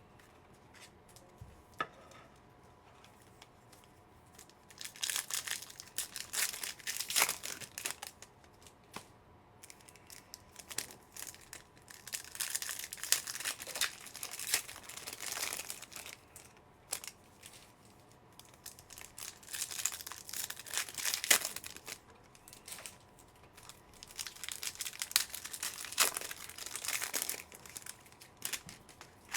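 Wrappers of Panini Phoenix football card packs being torn open and crinkled by hand, in four bouts of a few seconds each with quiet gaps between.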